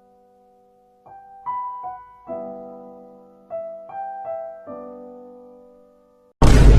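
Soft background piano music, single notes struck every half second to a second and left to ring and fade. Near the end a sudden, very loud burst of harsh noise cuts in over it.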